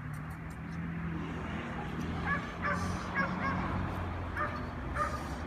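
Young puppies yipping while they tug and play: short, high, squeaky cries, about two a second from around two seconds in, over a steady low hum.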